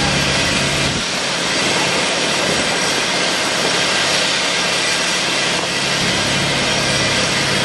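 Diamond wire saw cutting concrete, a steady hiss over the low hum of its drive engine. The hum fades about a second in and returns near six seconds.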